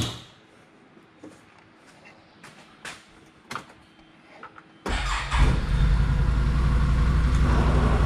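After a few light knocks, the 2020 Can-Am Defender Limited's V-twin engine starts suddenly about five seconds in and keeps running steadily.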